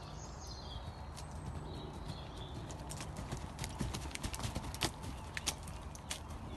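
Horse's hoofbeats as it moves past close by on the arena surface, a quick run of sharp strikes that is loudest between about three and six seconds in.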